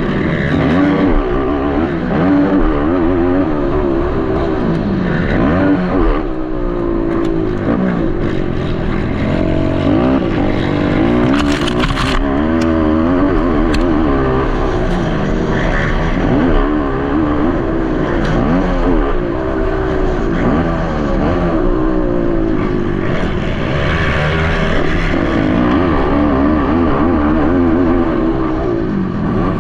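Racing ATV (quad) engines running hard on a motocross track, several at once, their pitch rising and falling continuously with throttle and gear changes.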